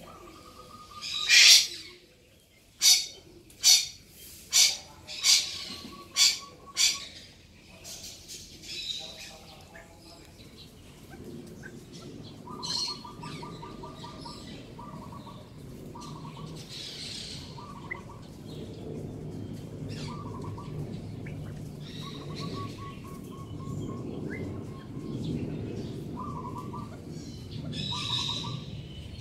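Birds calling: a run of about six loud, sharp calls in the first seven seconds, then a short trilling note repeated every second or two over a low steady hum.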